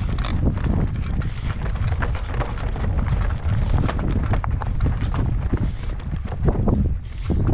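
Wind buffeting the microphone, with irregular footsteps, scuffs and knocks from walking a mountain bike over a rocky ridge path.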